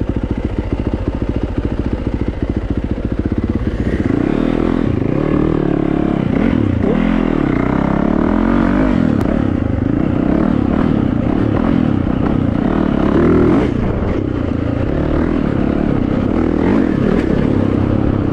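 Yamaha YZ450FX single-cylinder four-stroke dirt bike engine, heard from the rider's helmet. It runs at low revs for the first few seconds, then the throttle opens about four seconds in and the revs keep rising and falling while the bike rides along the trail.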